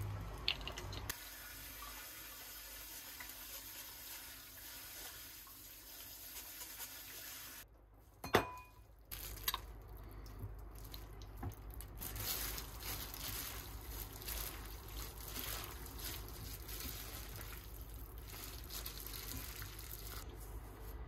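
Kitchen food-prep sounds at a sink: water running as an even hiss for several seconds, then after a brief break irregular soft scraping, squelching and rustling as saucy sea snails are tipped onto noodles and mixed by a gloved hand.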